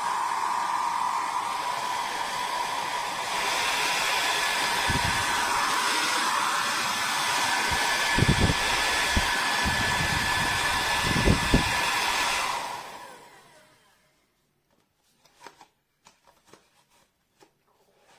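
DEWILY 1800 W ionic hair dryer running: a steady rush of air with a whine, getting louder about three seconds in, with a few low thumps of air buffeting. A little after twelve seconds it is switched off and spins down to silence, leaving only faint clicks of handling.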